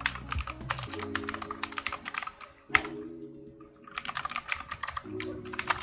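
Typing on a computer keyboard: quick runs of key clicks, with a break of about a second and a half near the middle.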